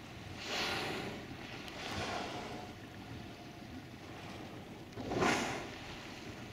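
Wind and sea noise, rising in three whooshing surges about half a second, two seconds and five seconds in, the last the loudest.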